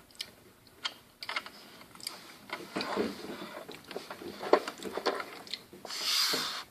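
Handling noise: plastic clicking and rubbing, with scattered sharp clicks and a stretch of rustling and scraping, then a short hissy rustle near the end.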